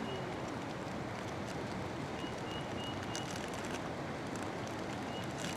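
Steady rushing of a river, with a bird repeating a short high note in quick runs of four or five, three times, and a few light clicks.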